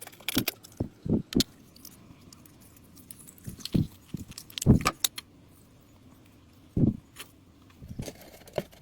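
Rusty metal parts being handled and set down: irregular clinks and knocks, about a dozen in all, the loudest near the middle.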